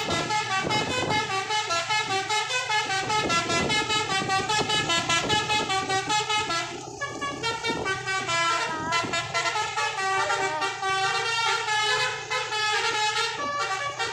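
Basuri telolet horn on a bus, a set of tuned air horns, playing a fast melody, with the notes stepping up and down several times a second and a brief gap about seven seconds in.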